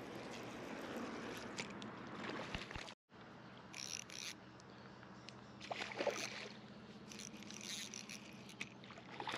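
A hooked fish splashing at the water's surface in a few short bursts, over a faint steady low hum. The sound cuts out completely for a moment about three seconds in.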